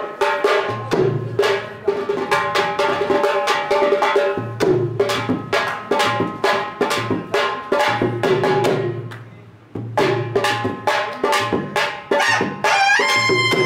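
Rapid rhythmic drumming with ringing strikes, breaking off briefly about two-thirds of the way through. Near the end a tutari, the long curved brass horn of Maharashtra, starts a sustained blast that rises in pitch and then holds a steady note.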